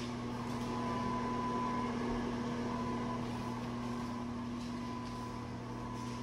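Steady mechanical hum with a thin, faint high tone, unchanging throughout.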